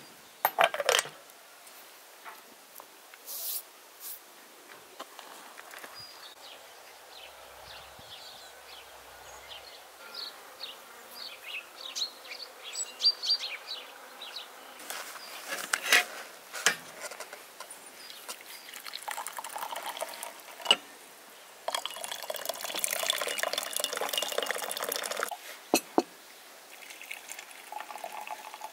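Water pouring steadily for about three seconds near the end, running from a brass samovar's tap into a porcelain teapot. Earlier there are scattered clinks of china and a run of short high chirps.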